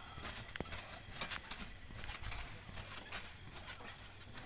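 Trampoline springs and frame clinking and creaking in irregular sharp clicks, several a second, as people shift and bounce on the mat.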